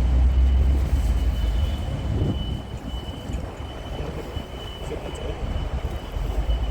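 Rail maintenance vehicle running during shunting: a heavy low engine and rolling rumble, loudest in the first second or so. A thin steady high-pitched tone runs over it.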